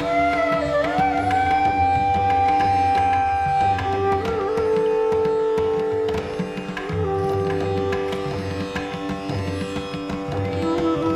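Instrumental background music in an Indian classical style: long held melody notes that slide between pitches over a steady drone, with a low rhythmic pulse underneath.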